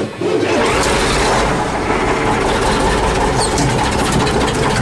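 The YaMZ-236 V6 diesel of a T-150K tractor, heard from inside the cab, is cranked by its starter and starts up, then runs steadily and loudly. This is its first start after the filters were changed.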